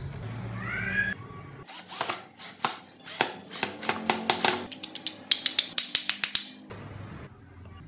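Sharp clicks and knocks of wooden parts being handled and fitted together, irregular at first and then coming in a quick run, about eight a second, near the end. A short rising whine sounds in the first second.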